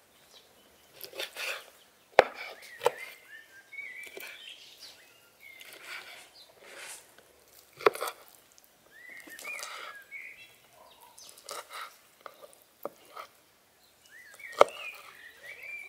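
Large kitchen knife cutting through lamb kidneys, its blade knocking sharply on a wooden cutting board now and then, loudest about two, eight and fourteen and a half seconds in. Small birds chirp on and off.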